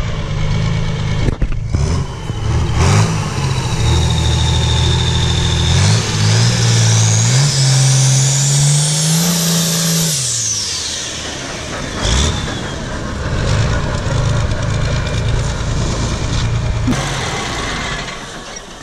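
International 1486 pulling tractor's turbocharged inline-six diesel, freshly refreshed, being driven and revved. The engine climbs briefly, then makes a long climb with a rising turbo whistle that peaks and falls away sharply about ten seconds in as the throttle comes off. After that it runs at lower revs and fades near the end.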